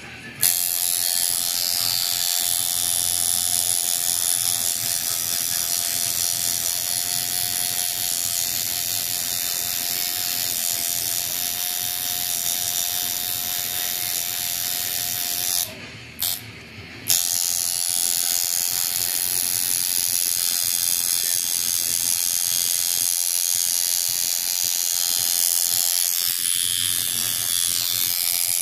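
Coil tattoo machine buzzing steadily while tattooing skin. It cuts out twice in quick succession about halfway through, then starts up again.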